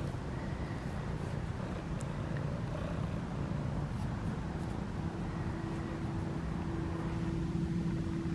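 Tabby cat purring up close while being stroked: a steady, low, pulsing rumble.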